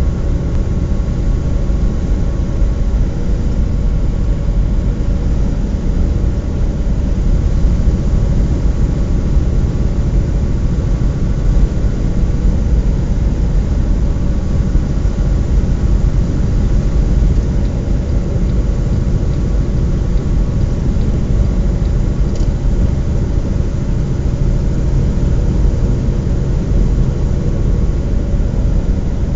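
Steady engine drone and road rumble heard inside the cab of a vehicle cruising on a highway, with an even low hum that does not change.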